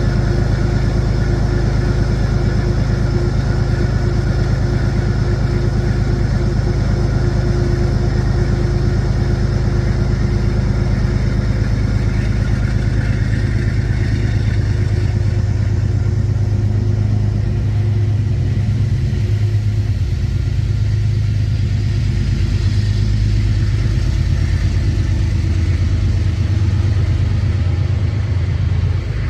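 Diesel engine of a GE P32AC-DM passenger locomotive, a 12-cylinder 7FDL, running steadily: a loud, even low rumble with a few held tones above it.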